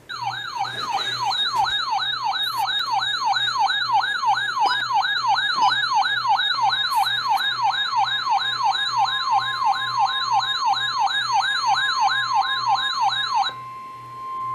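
A weather radio receiver's alert siren: a loud warbling tone sweeping up and down about two and a half times a second over the steady NOAA Weather Radio warning alarm tone. The warble stops about 13 seconds in, leaving the steady alarm tone alone. It heralds a severe thunderstorm warning.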